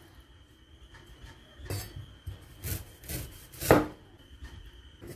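Cleaver slicing a knob of ginger on a bamboo cutting board: a few single knocks of the blade through the root onto the wood, roughly a second apart, the loudest late on.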